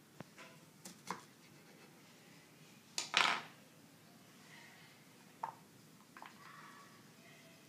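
A kitchen knife slicing leek on a plastic cutting board, knocking on the board a few times in the first second or so. A louder knock and short clatter comes about three seconds in, followed by a few light clicks as the leek pieces are handled.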